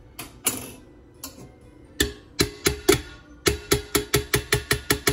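A kitchen utensil tapping against the stainless steel inner pot of an Instant Pot, sharp ringing metallic taps, a few spaced ones about two seconds in, then a quick run of about five a second, as food is knocked off into the pot.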